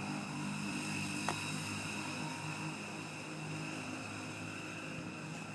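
Steady drone of a distant engine, with a steady high whine above it and one faint click about a second in.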